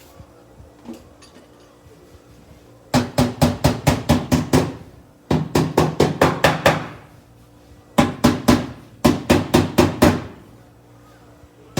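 Hammer tapping on car sheet metal to work out a dent: runs of quick sharp taps, about six a second, each run lasting a second or so with short pauses between, starting about three seconds in.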